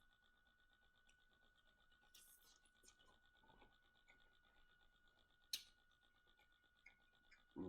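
Near silence broken by faint scratching and clicks of king crab shell being handled and eaten, with one sharper click about five and a half seconds in.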